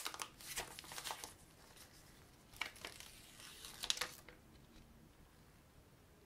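Thin plastic protective film crinkling as it is peeled off the back of a smartphone, in several short bursts during the first four seconds.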